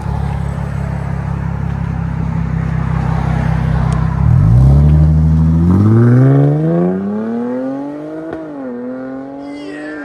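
2017 Jaguar F-Pace's supercharged 3.0 L V6 through a Dynomax Bullet exhaust: a steady low drone, then the engine note climbs steadily for about four seconds as it revs. The note dips sharply about eight seconds in and settles lower near the end.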